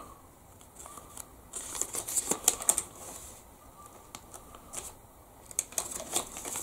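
Small folded paper instruction leaflet being handled and turned over: scattered crinkles and rustles that come in short clusters.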